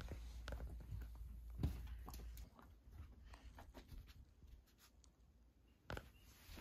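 Faint soft knocks and rustling as a dog noses and shoves a large plush toy and steps about on carpet, with two sharper knocks, one a little under two seconds in and one near the end.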